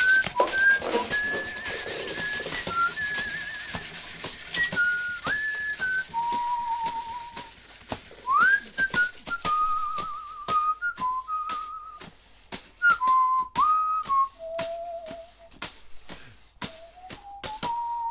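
A person whistling a slow tune, long wavering notes with upward slides between them, over the scratchy rub and clicks of sandpaper worked by hand on polished steel. The rubbing hiss is strongest in the first few seconds.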